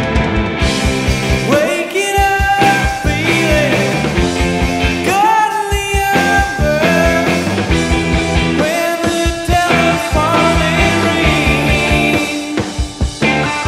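Rock music soundtrack with a steady drum beat.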